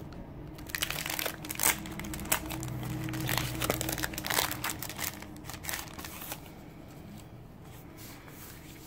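Clear plastic sleeve and paper sticker sheets crinkling and rustling as the sheets are handled and pulled out of the bag. The crinkling dies down after about six seconds.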